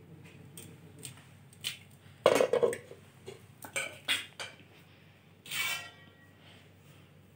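Stainless steel utensils clinking and scraping: a spoon against steel plates and a pot, and a lid being handled, in a series of short knocks with the loudest clatter a little over two seconds in.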